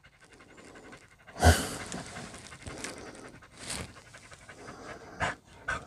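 Two dogs panting fast, hot after exercise. A thump about a second and a half in and a few short knocks or rustles later.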